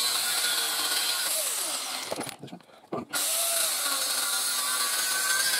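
Angle grinder with a cutting disc cutting through the steel tube of a tractor PTO shaft to shorten it, a steady hissing whine. The sound breaks off for about a second partway through, then the cut resumes.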